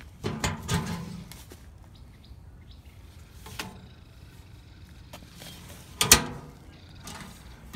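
Black metal curbside mailbox being opened and closed: scattered knocks and rattles, then the door shuts with a sharp metal clap about six seconds in, the loudest sound. Birds chirp faintly in the background.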